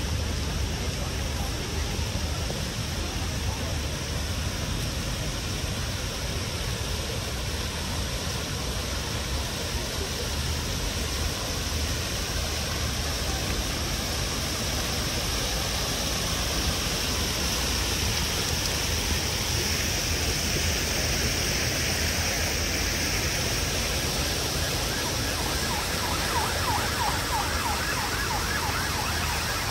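City street ambience of steady traffic rumble and hiss, with an emergency-vehicle siren whose rising and falling wail is clearest near the end.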